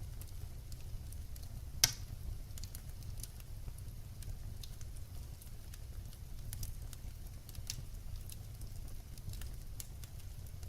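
Wood fire burning, with a steady low rumble and scattered small crackles and pops of burning logs; one loud sharp pop a little under two seconds in.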